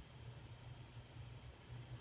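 Near silence: faint low hum and hiss of room tone.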